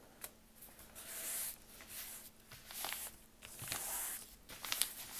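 Hands rubbing and smoothing a glued sheet of brown paper bag flat onto drawing paper: a series of soft, hissy paper swishes, with a few light crinkles near the end.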